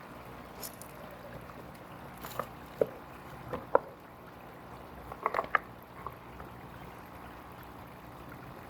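Pond water trickling steadily, with scattered drips and plops, a small cluster of them a little past the middle.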